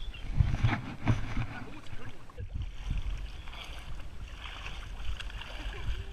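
Creek water sloshing and swishing around a wading angler's legs, heard as a muffled low rush with scattered knocks through a waterproof camera housing.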